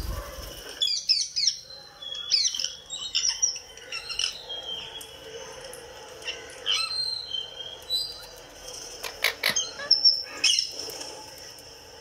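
Indian ringneck parakeet giving short, high-pitched squawks and chirps in several clusters. A brief low bump of the camera being handled comes right at the start.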